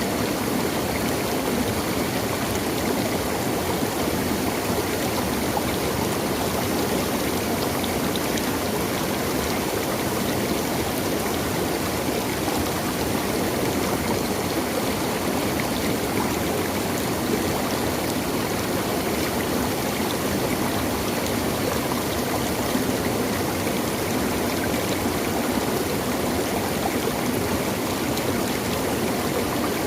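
Stream water running and splashing over rocks in a steady, continuous rush.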